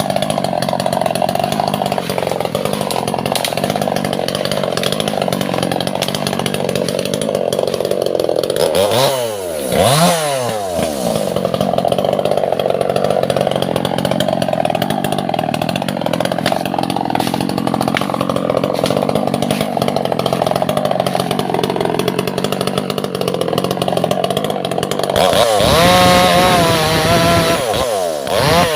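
Chainsaw cutting albasia (sengon) wood, its engine running steadily under load. The pitch drops and climbs back sharply twice about nine and ten seconds in, and again several times near the end.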